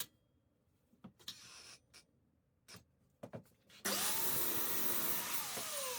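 A few light knocks, then about four seconds in a power saw's motor starts, runs at a steady whine, and winds down with a falling pitch after about a second and a half.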